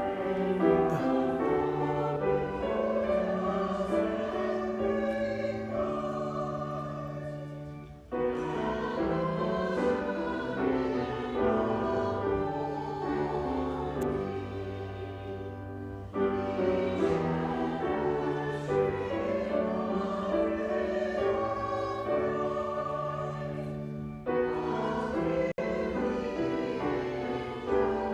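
Church choir singing the benediction response with accompaniment, in phrases of about eight seconds each with short breaths between them.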